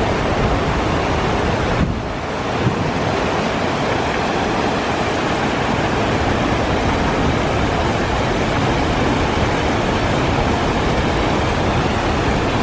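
River water rushing steadily over rock cascades and small waterfalls, an even loud hiss with a brief dip about two seconds in.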